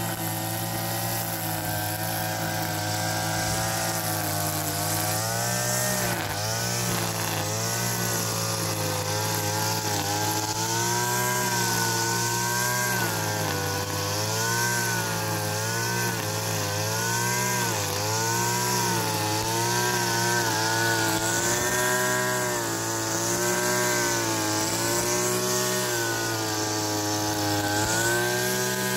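Backpack two-stroke petrol brush cutter running at high speed while cutting dry grass, its engine pitch wavering up and down every second or so.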